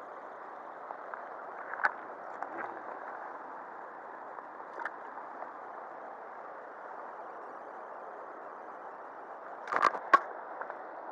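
Steady rush of a shallow river's current. Over it come a few sharp clicks: one about two seconds in, one about five seconds in, and the loudest pair near the end.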